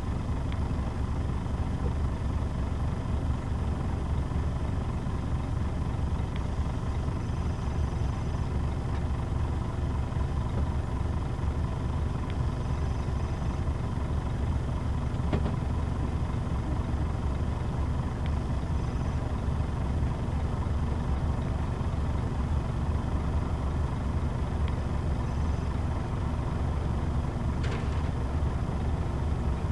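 Scania K124 bus's 12-litre straight-six diesel idling steadily while the bus stands still, heard from inside the passenger cabin.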